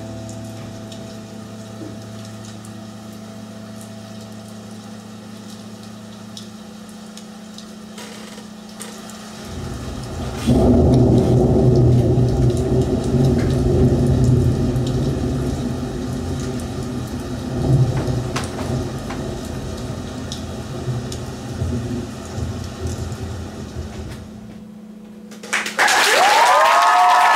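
A cloudburst storm soundscape: a held low drone with faint rain hiss, then a loud low thunder-like rumble from about ten seconds in that fades near the end. Audience applause breaks out in the last second or so.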